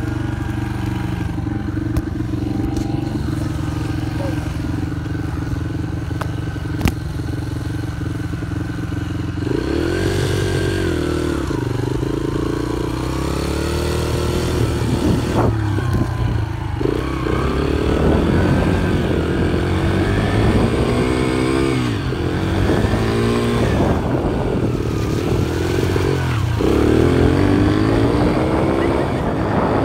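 Small dirt bike engine running close by, fairly steady at first, then from about ten seconds in repeatedly revving up and easing off as the bike speeds up and slows.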